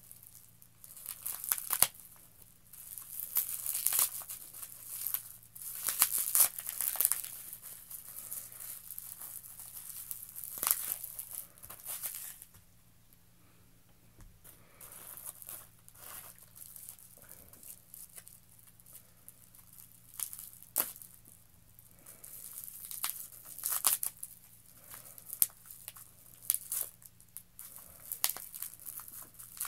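Plastic bubble wrap crinkling and rustling in irregular bursts as small plastic helmets are unwrapped by hand, with a pause of a couple of seconds near the middle.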